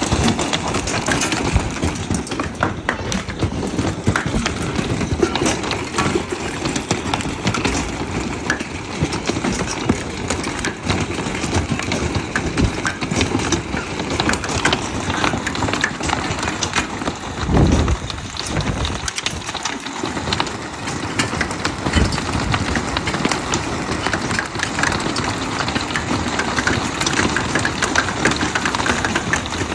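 Hailstones pelting down hard, a dense, irregular clatter of many small impacts over a steady hiss. A brief, louder, deeper surge comes a little past halfway.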